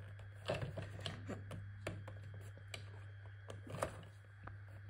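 Light clicks and taps of a hard plastic toy playset being handled and opened, a few scattered knocks over a steady low hum.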